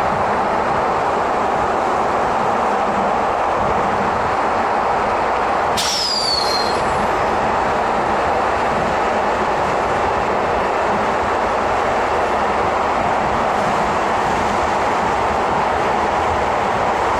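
Broad Street Line subway car running at speed through the tunnel, heard from inside the car as a steady loud rumble of wheels on rail. About six seconds in there is a sharp click, then a brief high squeal falling in pitch.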